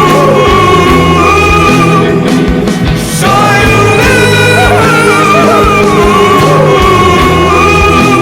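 Loud rock music from a band: a wavering lead melody repeats a phrase about every four seconds over steady bass notes and drums.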